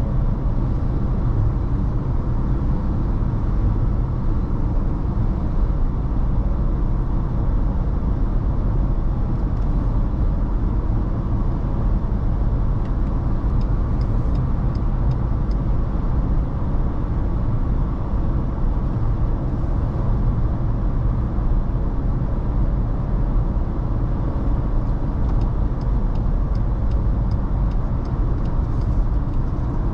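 Steady engine and road-noise drone inside the cabin of a Ford Ranger Raptor cruising. Twice there is a short run of light, evenly spaced ticks from the turn-signal clicker.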